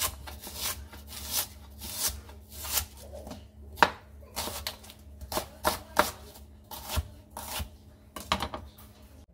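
Chef's knife slicing an onion on a plastic cutting board: irregular knife strokes, about two a second, each ending in a sharp tap as the blade meets the board.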